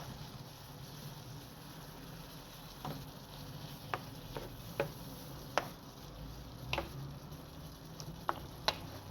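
Chicken pieces in a spicy sauce sizzling steadily in a frying pan as the liquid reduces, with scattered sharp clicks and pops starting about three seconds in.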